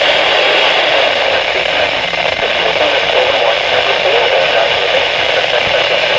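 Steady radio static hiss from a receiver tuned to a weak weather radio broadcast, with faint wavering tones buried in the noise.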